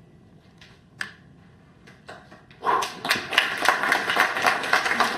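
Audience applause that breaks out a little past halfway through, a dense run of quick claps, after a quiet stretch with a few small taps.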